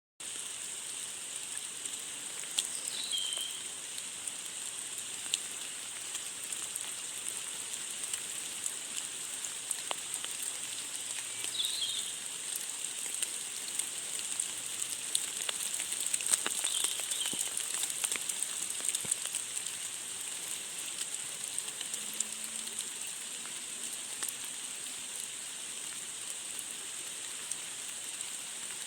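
Steady rain falling, a constant hiss dotted with the ticks of individual drops. Three short chirps come through about 3, 12 and 17 seconds in.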